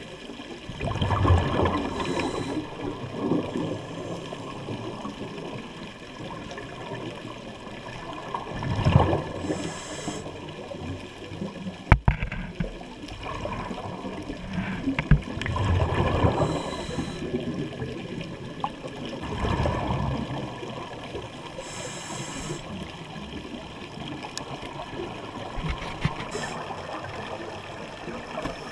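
Scuba diver breathing underwater through a regulator: exhaled bubbles gurgle and rumble in bursts every several seconds, with a short hiss of each inhale through the regulator. One sharp click about twelve seconds in.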